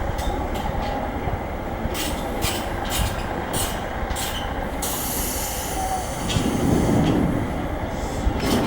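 Seibu Tamagawa Line electric train rumbling slowly along the track by the station, its wheels clicking over rail joints about twice a second. A faint wheel squeal comes early, a short hiss of air about halfway through, and the rumble swells near the end.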